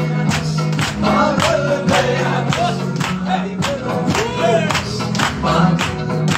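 Live Shina folk music: men singing over a steady low drone, with a double-headed hand drum beating about two strokes a second and hands clapping along.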